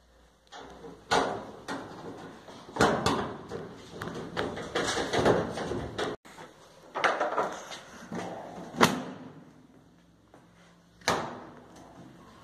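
Sheet-metal panels of a Whirlpool clothes dryer being handled and fitted back in place. A string of sharp metal knocks and clunks with rattling scrapes between them, the loudest knock near nine seconds in.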